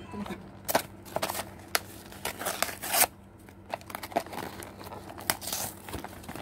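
Paper gift wrap and cardboard packaging being torn and crumpled by hand: irregular sharp rips and crinkles, the loudest about three seconds in.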